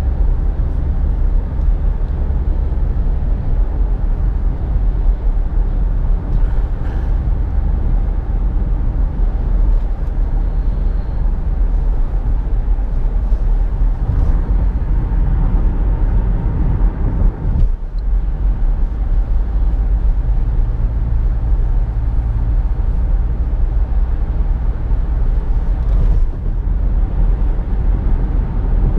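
Steady road and engine rumble inside a 2017 Nissan Rogue's cabin at highway speed.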